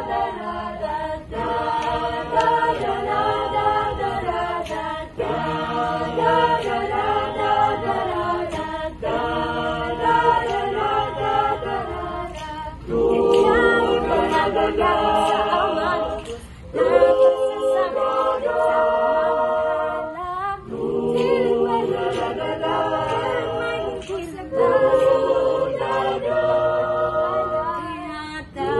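Mixed choir of men and women singing a cappella in harmony, with no instruments, in phrases that pause briefly every few seconds.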